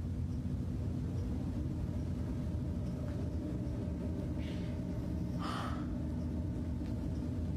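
A steady low rumbling hum with faint held tones, and a brief soft hiss about five and a half seconds in.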